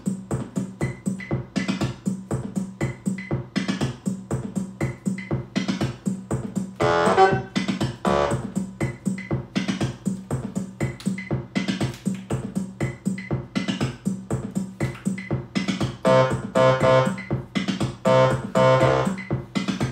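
Electronic music from a Korg Volca setup: a Volca Beats drum machine pattern runs steadily, and synthesizer notes played from the keytar come in about seven seconds in and again from about sixteen seconds on.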